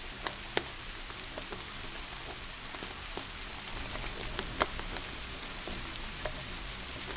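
Steady hiss of rain with scattered sharp pops and crackles from a wood fire. The loudest crack comes a little past halfway.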